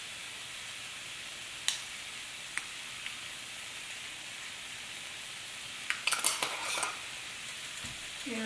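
Frying pan of pinto beans sizzling steadily on the stove. There are a few light clicks, then about six seconds in a short rattling burst as a spice jar is shaken over the pan.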